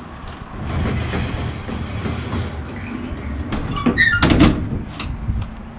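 Enclosed cargo trailer's rear ramp door being swung up shut, with rubbing and rattling as it rises, then loud metal clanks about four seconds in as it closes and the latch is worked.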